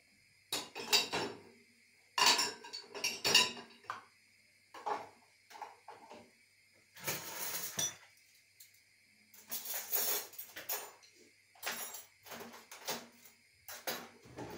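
Dishwasher being loaded by hand: plates, cups and cutlery clinking and knocking against each other and the wire racks in irregular bursts.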